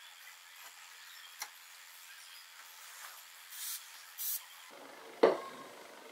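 Two short hisses from an aerosol spray can, then a sharp knock a second later, the loudest sound; a faint click earlier on.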